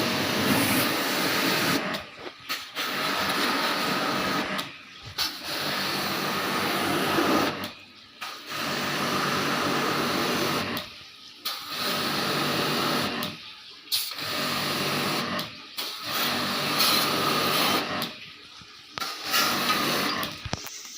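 A small motor-driven machine running loudly in spurts of two to three seconds, dropping off briefly between them, about eight times.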